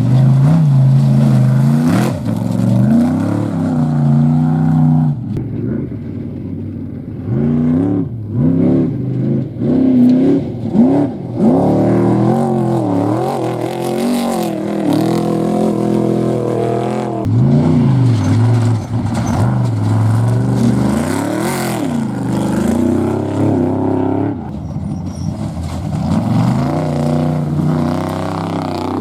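Off-road race vehicle engines revving hard, pitch climbing and falling again and again as they accelerate and ease off.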